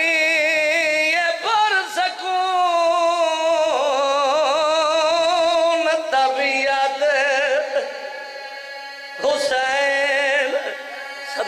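A man's voice singing a slow, mournful majlis recitation into a microphone, with long held notes and heavy vibrato. It drops softer for about a second and a half near the end before rising again.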